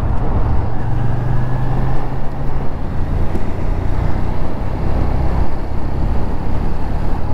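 Suzuki Gladius's V-twin engine pulling steadily while the motorcycle accelerates, under a constant rush of wind and road noise. The engine note dips briefly at the start, then holds steady.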